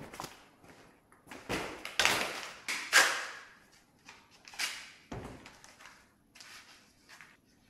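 Several knocks and scraping clatters, like things being handled, set down and dragged, the loudest about three seconds in.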